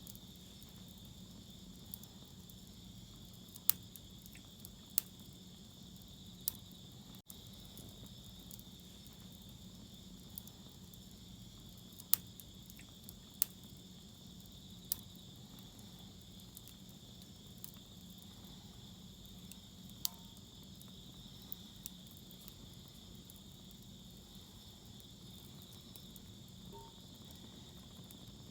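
Wood fire crackling, with a dozen or so sharp, irregular pops, over a steady high trilling of insects.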